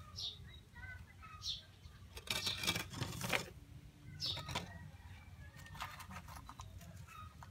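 Faint scraping and rustling of flower pots and potting soil being handled on a bench, the loudest scratchy stretch about two to three seconds in.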